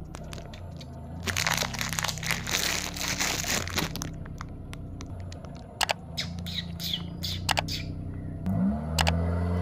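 A car tyre rolls over and crushes crunchy objects on asphalt. About a second in there is a long, dense crackling crunch. Later come scattered sharp cracks and snaps, and the car's engine rises near the end.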